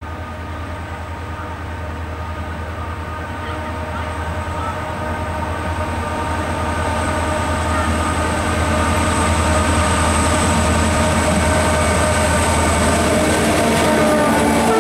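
A freight train's two diesel-electric locomotives, a TCDD DE33000-class unit leading a DE24000-class unit, approach with a steady engine drone. It grows louder throughout as the lead locomotive draws level near the end.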